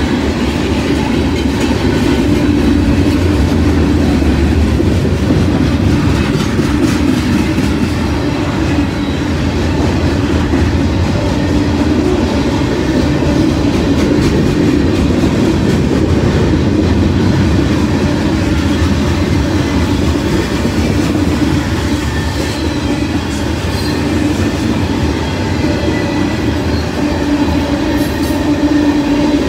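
Mixed manifest freight train of gondolas, tank cars and boxcars rolling steadily past, its wheels rumbling and clattering over the rails.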